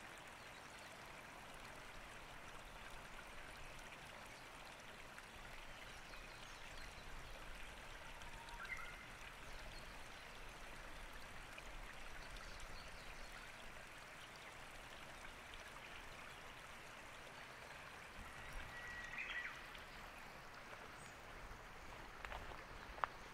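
Steady rushing of flowing water, like a small stream, with two brief high chirps, one about a third of the way in and one about four-fifths in.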